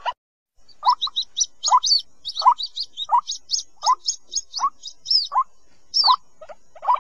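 White-breasted waterhen chicks calling for their parents. After about half a second of silence, short rising calls repeat roughly every 0.7 seconds, with quicker high-pitched peeps between them.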